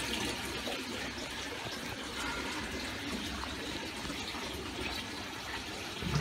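Steady rush and splash of water moving through a saltwater aquarium's sump and PVC return plumbing, with the return pump running.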